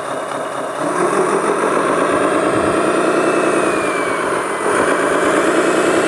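Engine sound of a radio-controlled Komatsu-style model wheel loader running steadily as it works, growing louder about a second in and again near the end.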